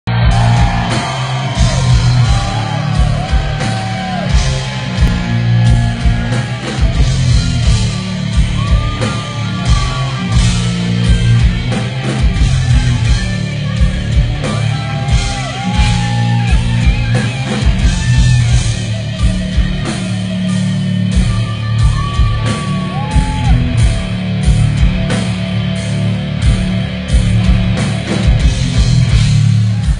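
Heavy metal band playing live in a hall: distorted electric guitars, bass and a pounding drum kit, with a singer's voice over them.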